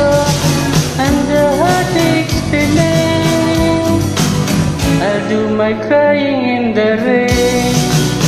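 Karaoke singing over a pre-recorded backing track with guitar, the voice holding long notes.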